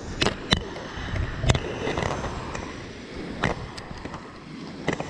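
Shimano Nexave 2500 spinning reel being wound in against a fish on the bent rod, with about six sharp, irregular clicks over a low rumble of wind and surf.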